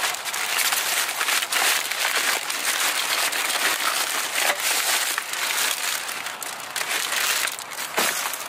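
Thin plastic carrier bags rustling and crinkling continuously as hands rummage inside them and lift them, a dense crackle of many small clicks.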